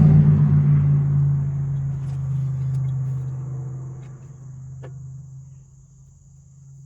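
A motor vehicle's engine, loudest at the start and fading away over about five seconds, with a low engine hum lingering. A faint steady high insect trill runs underneath.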